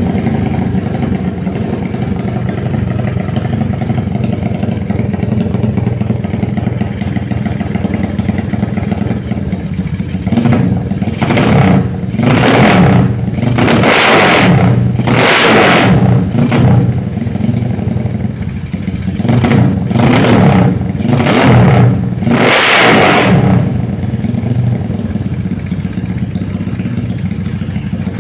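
Motorcycle idling through an aftermarket Creampie CP3 muffler fitted with a baffle insert. About ten seconds in the throttle is blipped in a string of short revs, about nine, and after about twenty-three seconds it settles back to a steady idle.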